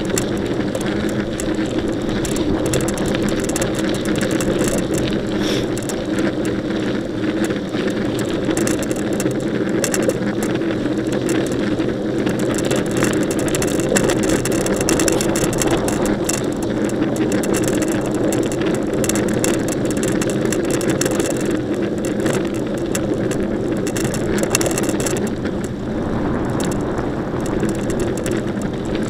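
Mountain bike being ridden: a steady rolling hum with frequent small rattles and clicks.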